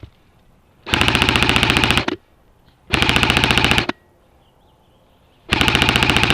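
Airsoft gun firing on full auto in three bursts of about a second each, a rapid, even rattle of shots.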